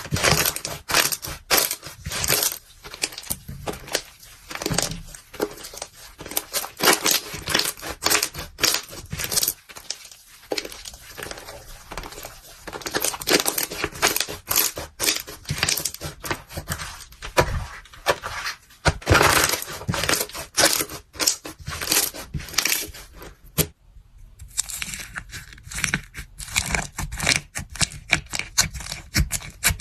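Crunchy ASMR material being crushed and broken: dense, irregular crackling and snapping. There is a brief silent break near the end, and then a new run of crackling and crinkling follows.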